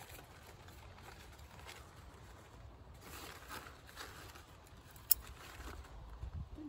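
Grapevine leaves and stems rustling as bunches of grapes are handled, with one sharp scissors snip about five seconds in.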